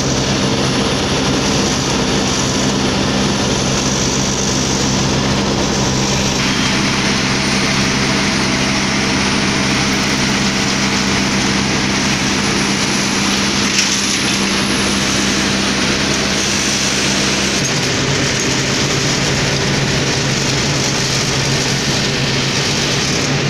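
Heavy diesel engines of a Sumitomo HA90C asphalt paver and a Hino dump truck running steadily while paving, a constant engine drone with a dense mechanical clatter over it. The sound shifts abruptly twice as the shots change.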